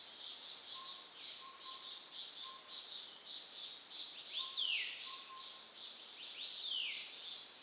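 Small birds chirping and chattering continuously, with loud downward-sweeping whistles about halfway through and again near the end. The perched brown wood owl is not hooting.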